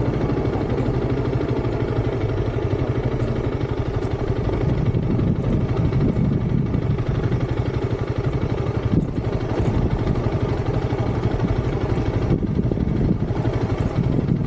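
Motorcycle engine running steadily, with a fast, even low pulse and no marked revving.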